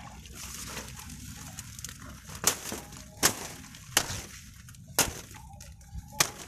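Footsteps through a reed swamp: dry reed stalks rustling, then cracking and snapping underfoot five times, about once a second.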